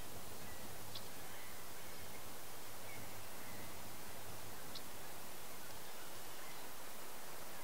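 Steady outdoor background hiss with a few faint, short bird chirps, about one second in and again near the five-second mark.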